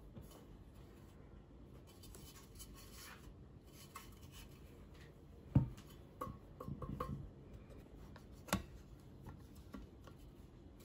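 Light handling sounds: a few short taps and clicks against a low background, the clearest about five and a half seconds in and again about eight and a half seconds in.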